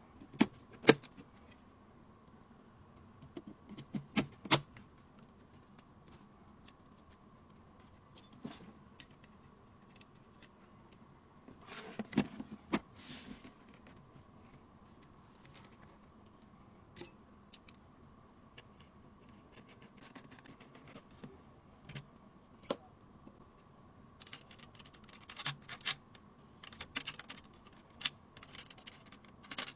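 Hands handling and fitting PC components: scattered sharp clicks, taps and short scraping and rattling bursts, busiest near the end, over a faint steady hum.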